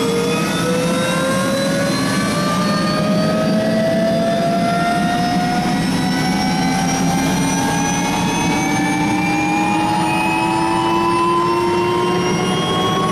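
Helicopter engine winding up on the ground, a whine that rises slowly and steadily in pitch over a steady low hum.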